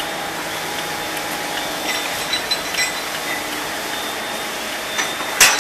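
Double disc grinder running with a steady grinding noise as connecting rods are fed through, with a few light clinks and one sharp clank near the end.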